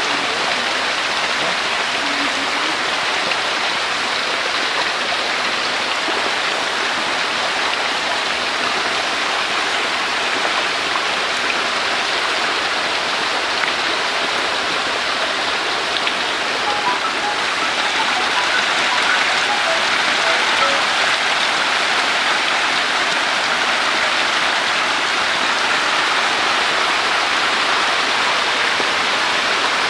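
Steady, dense splashing and pattering of water as a packed mass of hybrid magur catfish fry thrashes at the surface of a crowded tank while feeding.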